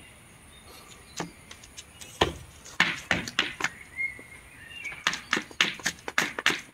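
A series of sharp clicks or taps, a few scattered ones at first, then coming quickly, about four or five a second, from about five seconds in.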